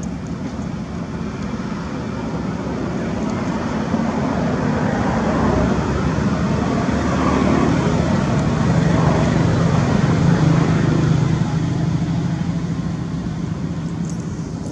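Steady outdoor background of road traffic, with a low engine hum that swells in the middle as a vehicle passes and then fades.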